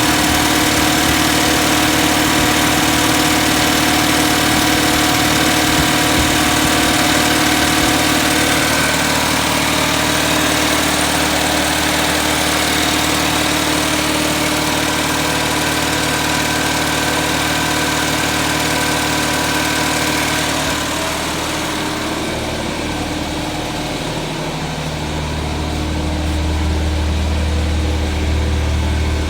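1979 Datsun 210's carbureted four-cylinder engine idling steadily, a drone of many even tones. A little past twenty seconds in, the higher tones fade and a strong deep hum comes up near the end. The engine still has a misfire that the owner has not yet traced.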